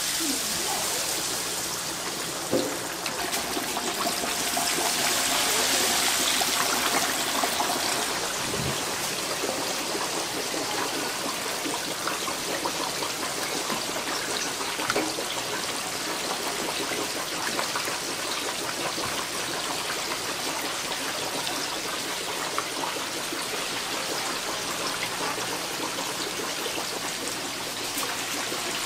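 Battered chicken deep-frying in a vat of hot oil: a steady sizzle, with a couple of light knocks.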